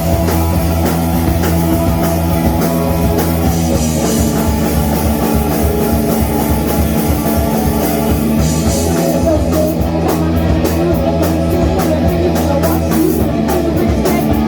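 Rock band playing live with no vocals: guitar, bass and drum kit. Sharp, evenly spaced cymbal strokes become prominent about nine seconds in.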